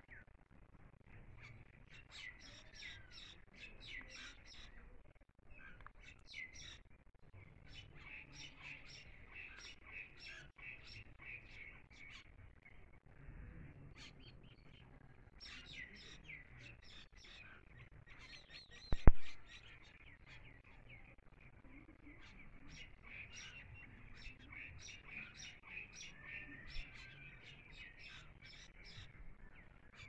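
Caged bimaculated lark singing: runs of quick, high chirps and twitters broken by short pauses. One sharp click, much louder than the song, comes about two-thirds of the way through.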